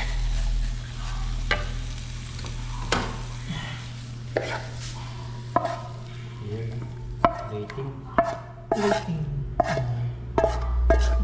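Tilapia frying in a pan with a sizzle, under repeated knocks and scrapes of a cooking utensil against the pan, coming closer together in the last few seconds.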